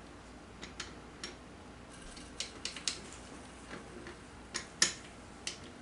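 Light metal clicks and taps at irregular intervals, the loudest a little before the end, as ATV clutch parts are worked onto a splined shaft and lined up in the teeth.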